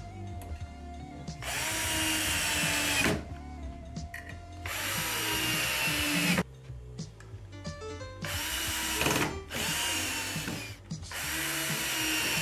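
Cordless drill driving screws through a steel pole flange into a wooden board: several short runs of a second or two each, the motor's whine falling in pitch toward the end of each run.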